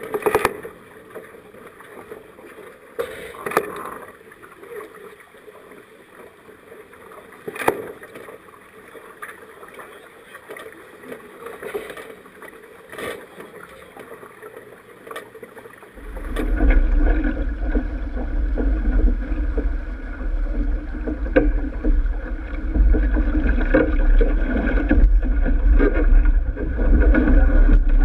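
Sailboat under way: water rushing along the hull with wind on the microphone, and a few sharp knocks of gear on deck. About halfway through the sound changes abruptly to a louder, steady low wind rumble on the microphone over the water noise.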